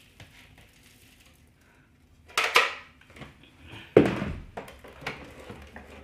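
A robot vacuum's dustbin being emptied into a plastic bucket: a short rattle of dry Rice Krispies cereal and dirt about two and a half seconds in, then a loud knock about four seconds in and a few lighter clicks.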